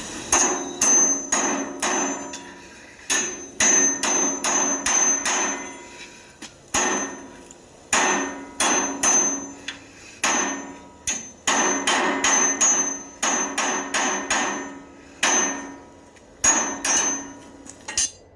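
Rhythmic metal hammering: sharp strikes about two to three a second in runs of several, each ringing with the same clear metallic tones, with brief pauses between runs. It starts and cuts off abruptly.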